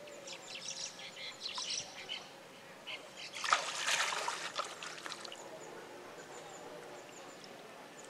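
Pond water splashing as a hand net is worked through the shallows: choppy little splashes at first, then a bigger splash about three and a half seconds in that dies away over the next two seconds. Faint bird chirps sound behind.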